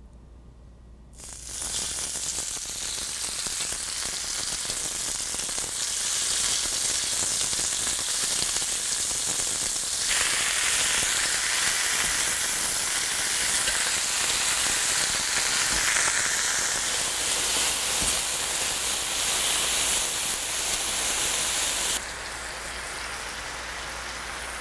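Marinated pork slices sizzling on a hot, oiled ridged grill pan. The sizzle starts suddenly about a second in, as the meat goes onto the pan, and drops to a lower level near the end.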